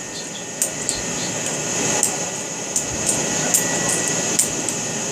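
Sharp, irregular clicks of a Benchmade 42-clone balisong (butterfly knife) as its handles knock together and against the blade while it is worked open and closed in gloved hands. The clicks sit over a steady background hum.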